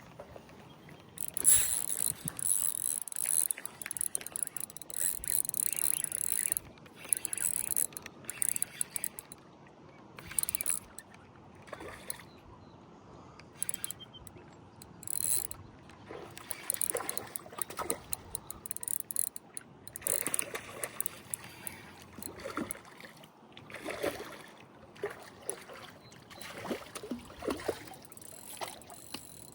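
Fishing reel being cranked in stretches, a fast, hissy mechanical ticking as line is retrieved, the longest run in the first several seconds and shorter bursts after.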